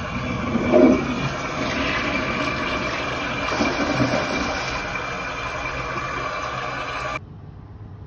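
Toilet flushing after a touchless hand-wave sensor is triggered: a steady rush of water that stops abruptly about seven seconds in.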